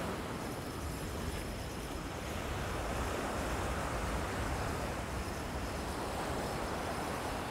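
Ocean surf breaking and washing onto a sandy beach as a steady rush, with wind buffeting the microphone.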